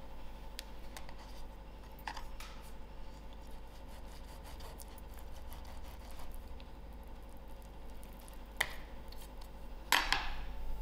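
Chef's knife slicing through a raw chicken breast on a wooden cutting board to butterfly it: faint cutting and rubbing sounds with scattered light taps, then two sharper knocks on the board near the end.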